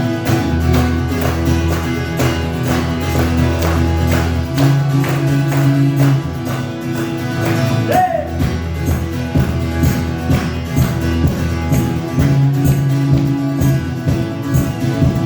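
Guitar playing the instrumental introduction of a song: steady strumming over held low notes.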